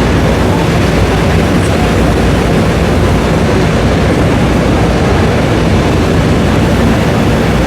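CNC multi-router running and machining, a loud steady mechanical noise with no breaks.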